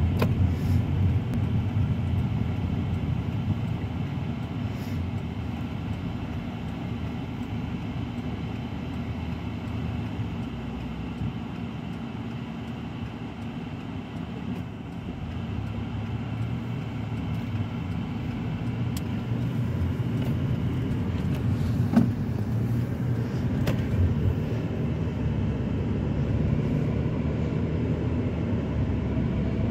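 Road noise heard inside a moving car's cabin: a steady low rumble of tyres and engine that eases off in the middle and builds again, with a few sharp knocks, the loudest about two-thirds of the way through.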